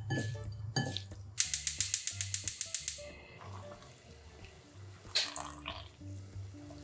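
Hands squishing a chili-seasoned side dish in a bowl, then a fast train of loud sharp clicks, about ten a second for a second and a half. After it, faint water from a pot at the boil, with a short splash and drip as a stock bag is lifted out.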